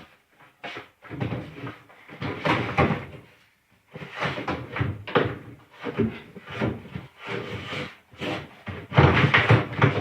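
Small wire-feed welder being shoved into a tight-fitting wooden cabinet opening: irregular knocks, bumps and scraping of its metal case against the wood, loudest near the end.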